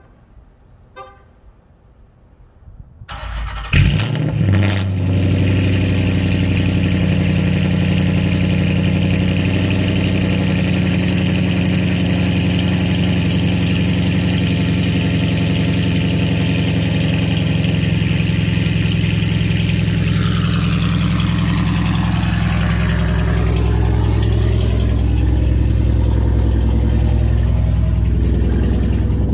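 Straight-piped 5.7-litre Hemi V8 of a Chrysler 300C cold-starting with no catalytic converters: the starter cranks briefly about three seconds in, the engine catches with a sharp burst, then settles into a steady, extremely loud idle.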